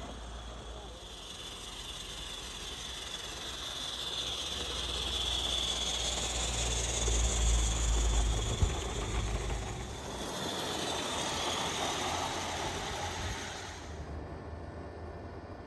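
Live-steam garden-railway train running past: a steady hiss of steam with the low rumble of wagons rolling on the track. It swells to its loudest about halfway as the wagons pass, then fades, and the high hiss drops away sharply near the end.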